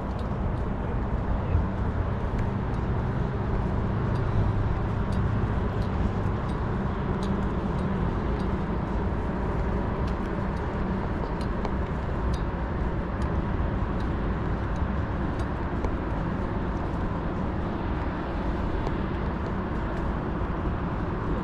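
Steady outdoor rumble of road traffic, with faint light clicks scattered through it.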